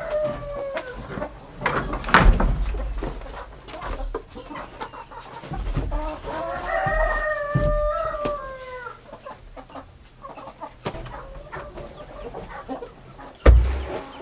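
A rooster crowing twice: the end of one crow falls away about a second in, and a full crow comes around the middle, dropping in pitch at its close. There is a loud knock about two seconds in and a thump near the end as a wooden stand and a plastic drum are set down on the coop floor.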